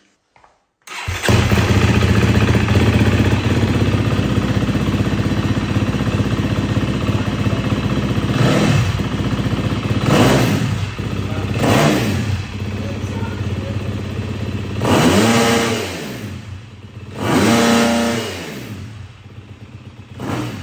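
A KTM 250 SX-F's single-cylinder four-stroke engine, breathing through a full Akrapovic Evolution titanium exhaust system, starts about a second in and idles steadily. It is then revved five times, each rev rising and falling back to idle, the last two longer and higher.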